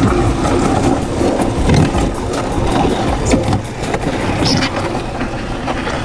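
MudMixer concrete mixer running: its electric motor drives the paddle through wet concrete in a steady churning hum, with scattered gritty knocks and clicks.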